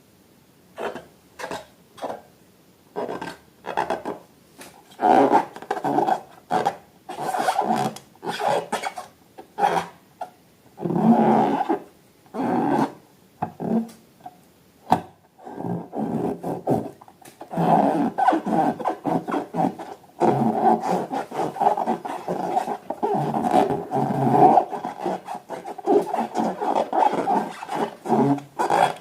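Rubber balloons being rubbed and squeezed by hand, squeaking in short bursts that become nearly continuous about halfway through.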